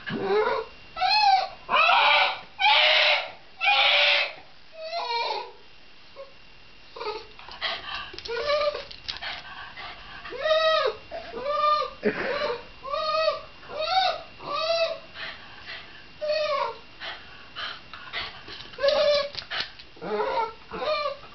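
Shiba Inu whining and yelping in a long run of short high-pitched cries, about two a second, each rising and falling in pitch. A few louder, harsher cries come about two to four seconds in.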